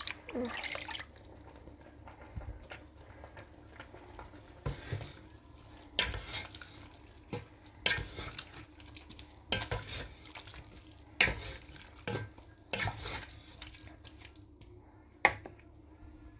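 Cooking sounds: a hand swishing in a bowl of water, then a wooden spatula stirring meat in a pot, with irregular sharp knocks against the pot every second or two. A faint steady hum runs underneath.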